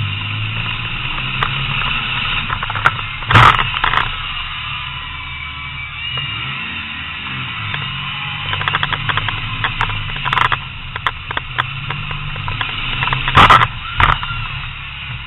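Demolition derby car's engine running steadily at low revs, heard from inside the gutted cab. Two loud sudden bangs come about three and a half seconds in and near the end, with a run of sharp clicks and rattles in between.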